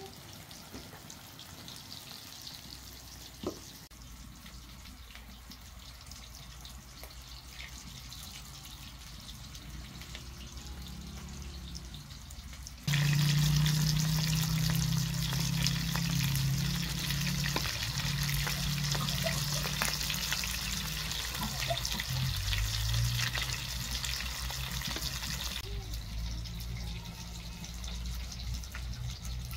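Pieces of dough deep-frying in oil in a wide metal pan, sizzling and crackling steadily. About a third of the way in the sizzle turns much louder and denser, and a few seconds before the end it drops back.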